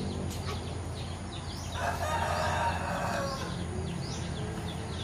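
A rooster crowing once, about two seconds in, for over a second, with small birds chirping repeatedly in quick falling notes.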